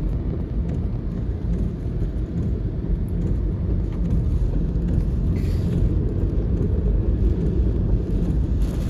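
Low, steady rumble of a car driving, heard from inside the cabin, with a brief faint hiss about five and a half seconds in.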